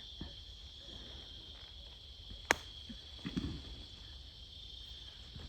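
Steady, high-pitched chorus of insects, with one sharp click about halfway through and a brief soft rustle just after it.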